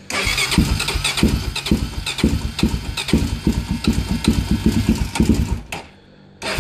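Honda quad's cold engine, on choke, being cranked by its electric starter, with an uneven chugging of about four beats a second that has not yet caught and run. The cranking stops near the end and starts again just after.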